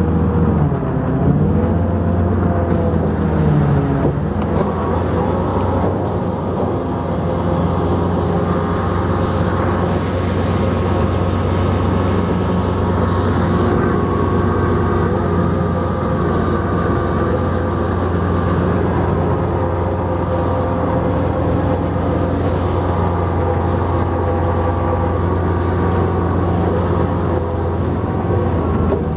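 Olympia ice resurfacer's engine running steadily under load as the machine drives along the boards, a low hum with a pitched drone above it. Its pitch dips and climbs back during the first few seconds.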